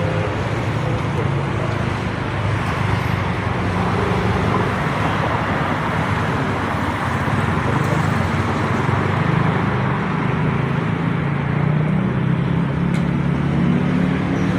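Busy street ambience: steady traffic noise with faint voices in the background.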